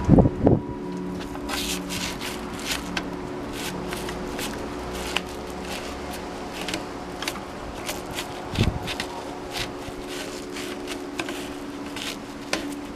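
A bottle brush scrubbing a bicycle frame: an irregular run of short, scratchy strokes, with a couple of low bumps, one at the start and one about two-thirds of the way through.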